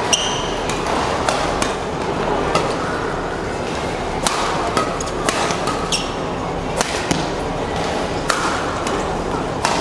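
Badminton rally: rackets striking the shuttlecock with sharp cracks, roughly one a second, over a steady murmur of spectators in a large hall.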